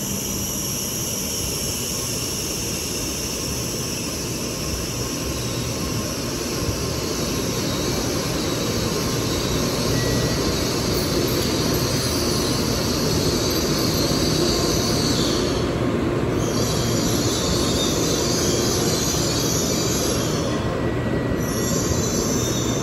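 Tokaido-Sanyo Shinkansen train pulling into the platform and slowing toward a stop: a steady rushing rumble of the passing cars with a high-pitched whine over it, the whine dropping out briefly twice in the second half.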